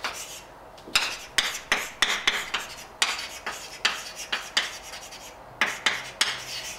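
Chalk writing on a blackboard: an irregular run of short taps and scratches as letters and symbols are chalked in.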